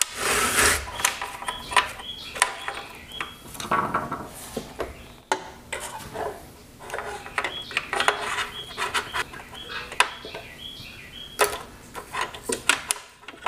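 Long screwdriver and plastic connector scraping, rubbing and clicking against the inside of a welder's housing and its wiring as the connector is pushed through into place: irregular scrapes and light knocks.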